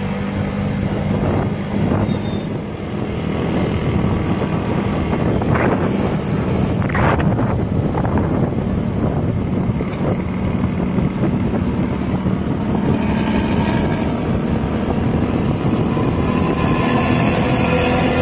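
Intercity bus engine running on the move, a steady low drone through its snoring ('ngorok') exhaust.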